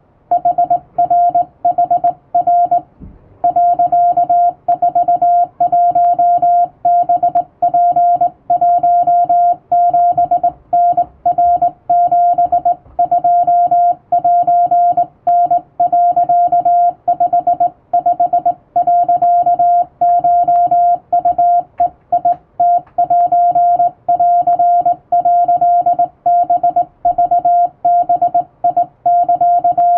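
Morse code sidetone: a single steady beep switched on and off by hand on a vertical straight key, forming dots and dashes of Japanese Wabun code at an even sending pace, with a short pause about three seconds in.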